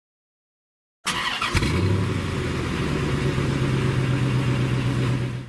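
A car engine starting: a short burst of cranking noise and clicks about a second in, then the engine catches and idles with a steady low hum until it cuts off suddenly.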